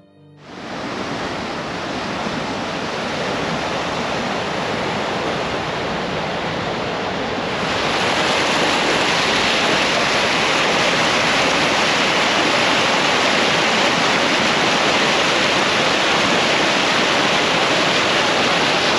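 Loud, steady rushing of water, growing louder and brighter about seven and a half seconds in.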